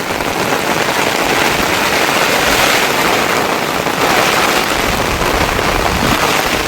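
Heavy rain pouring down, a loud, dense crackle of countless drops striking a surface.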